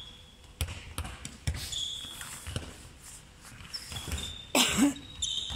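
Handballs bouncing and slapping into hands on a wooden sports-hall floor, with short sneaker squeaks, echoing in a large hall. A single louder, noisy burst comes about four and a half seconds in.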